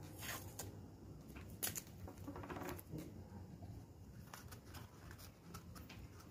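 Masking tape being torn from the roll and pressed down onto paper by hand: faint rustling with scattered small crackles and clicks.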